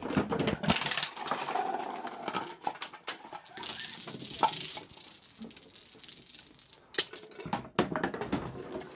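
Dominoes toppling one after another in a chain reaction, a rapid clatter of small clicks and knocks. It thins out about five seconds in, and a few louder knocks come near the end.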